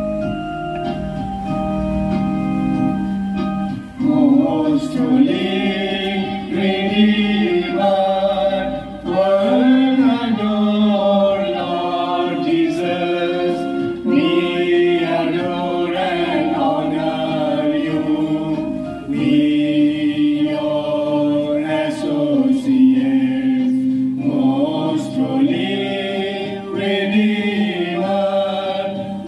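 A Roland electronic keyboard plays held, organ-like chords. From about four seconds in, a small group of voices sings a hymn over it.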